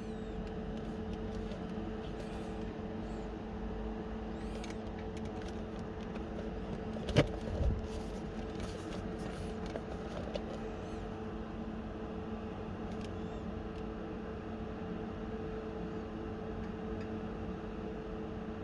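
Steady machine hum holding two low tones, broken about seven seconds in by two sharp knocks, with light clicks and rustles of handling around them.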